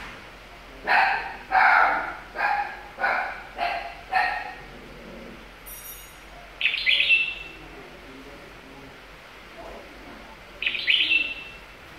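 A dog barks six times, a little over half a second apart, then a caged bird gives two short, sharp calls that drop in pitch, one about seven seconds in and one near the end.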